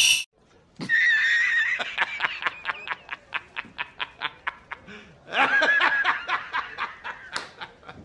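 A man laughing hard in a long run of quick pulses, about five a second, that fades, then a second loud burst of laughter about five seconds in.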